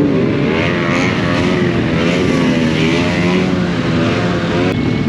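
Motorcycle engine running on the move, its pitch wavering slightly up and down over a steady rush of noise.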